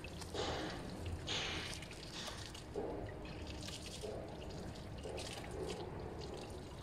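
Drilling water trickling and splashing in irregular gushes at the rig's mud pit and hoses, over a faint steady low hum.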